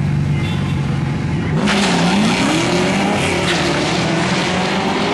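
Car engines at a drag strip: a steady idle, then about a second and a half in an engine revs up, rising in pitch, over a loud rushing noise that continues.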